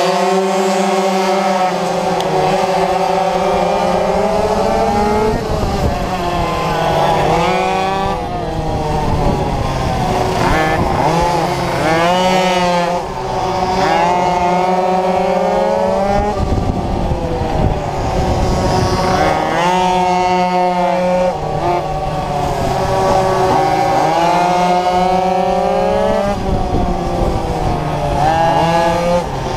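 Small two-stroke minimoto (pocket bike) engines racing at high revs, the pitch climbing under acceleration and falling back again and again as the bikes brake and accelerate through the corners. The engine nearest the microphone dominates, with wind noise over it.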